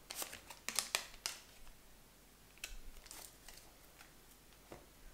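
Heart-shaped oracle cards being shuffled by hand, a quick run of card snaps and clicks in the first second or so, then a few softer clicks as a card comes out of the deck and is laid down.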